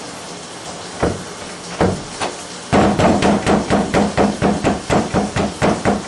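A hand pounding on a wooden door: a few separate knocks, then from about three seconds in, fast, steady banging, all over a steady hiss.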